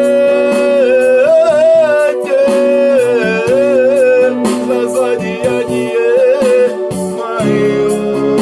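Music with no sung words: one held lead melody that wavers and slides over a steady lower accompaniment.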